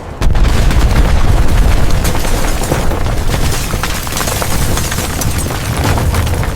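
Explosion sound effect: a sudden deep boom about a quarter second in, followed by a long, loud rumble with dense crackling that slowly tapers off near the end.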